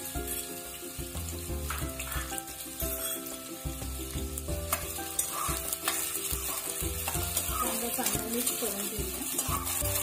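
Chopped onions sizzling in hot oil in a kadai, with a steel spoon stirring them and scraping and tapping against the pan.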